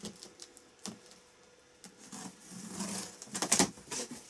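A knife slits the packing tape on a cardboard box, with scratchy scraping and scattered clicks. It ends in a loud burst of crackling cardboard and tape as the box flaps are pulled open.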